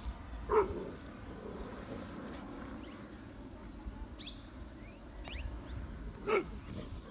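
A dog barks twice, single short barks about six seconds apart. Faint bird chirps come in between.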